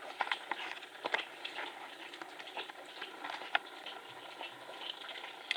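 A pet lapping water, heard as irregular light clicks and taps, several a second.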